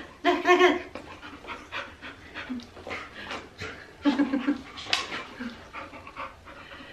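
Young Australian Shepherd panting in quick short breaths close to the microphone, with a woman's voice briefly near the start and her laugh about four seconds in.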